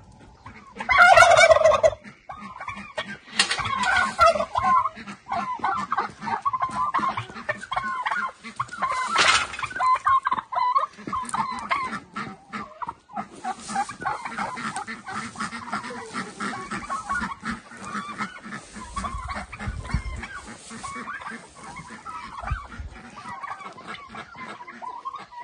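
A flock of domestic turkeys and chickens calling and clucking continuously as they crowd round to be fed, with a loud call about a second in.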